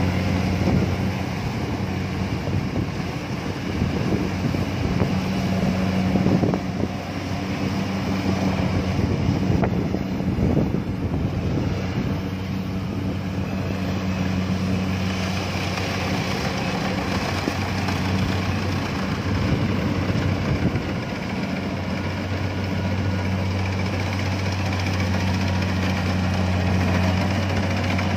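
Diesel engine of a Kubota DC70 combine harvester running steadily while the machine cuts and threshes rice: a constant drone with a low hum.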